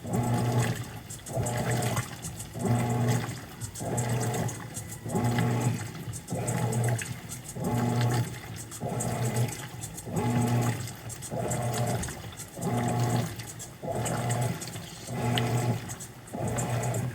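Mueller Popmatic 8 kg washing machine agitating: the motor runs in short strokes about every second and a quarter, reversing between them, with the wash water churning in the tub.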